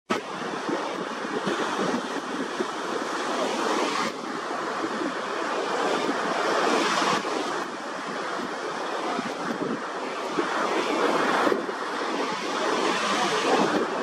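Surf washing in and out along a beach, a steady rush of breaking waves that swells and ebbs, with wind on the microphone. The sound changes abruptly a few times, about every three to four seconds.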